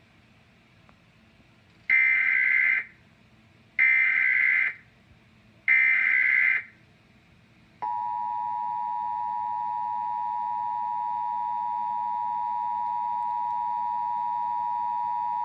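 Emergency Alert System test alert tones: three short buzzy bursts of SAME digital header data, each about a second long, followed by the EAS attention signal, a steady two-tone 853 and 960 Hz tone held for about eight seconds.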